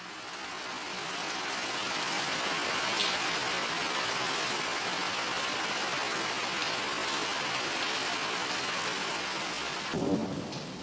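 A steady rushing hiss of noise, fading in from silence at the start, with a brief low rumble about ten seconds in.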